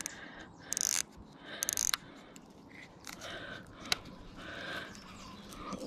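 Baitcasting reel handled in the hands. Two short ratcheting, scraping bursts come in the first two seconds, followed by a few faint scattered clicks.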